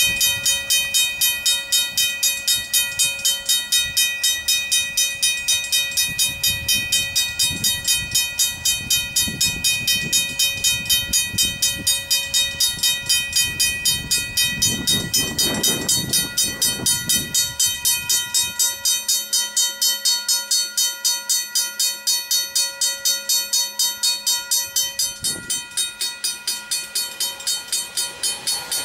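Griswold mechanical level-crossing bells ringing with rapid, even strokes, about four a second, in a steady ringing tone.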